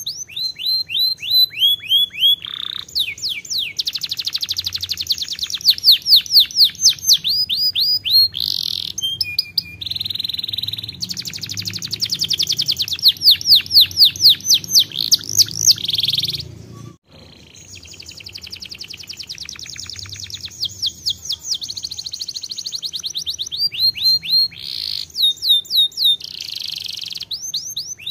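Domestic canary singing a long, loud song of fast rolls and trills made of repeated, falling high notes, with a short break a little past the middle.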